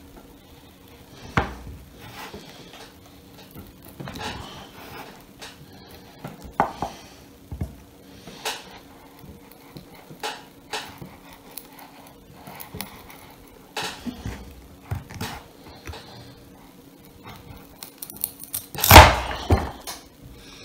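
Large knife cutting a small piece of hard foam on a wooden cutting board: scattered taps and knocks of the blade on the board, the loudest near the end, over a faint steady hum.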